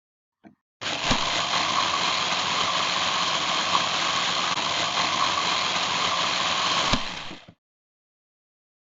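A steady machine-like whirring noise that starts with a click about a second in, runs evenly for about six seconds, then cuts off with a click and fades quickly.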